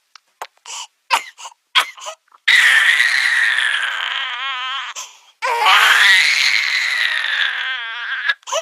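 Cartoon baby-crying sound effect: a few short sobbing catches, then two long high wails that rise and fall and end in a quavering wobble.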